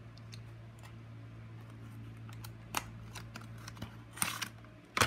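Scattered light clicks and taps of small repair tools and parts being handled on a work surface, a few sharper ones near the end, over a steady low electrical hum.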